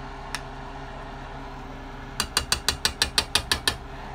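Gas range's spark igniter clicking rapidly, about ten even clicks in a second and a half, as the burner knob is turned. A single sharp click comes earlier.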